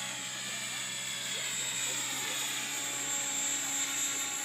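Align T-Rex 700E electric RC helicopter with a DFC rotor head in flight: a steady high whine from the motor and drivetrain over the hum of the spinning rotor.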